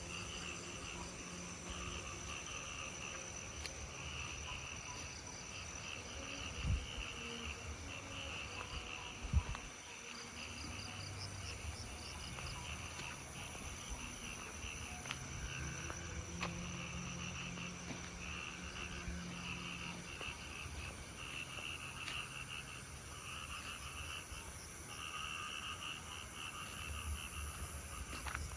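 Night chorus of crickets and other insects: steady high trilling with a layer of pulsing chirps. Two brief low thumps come about a third of the way through.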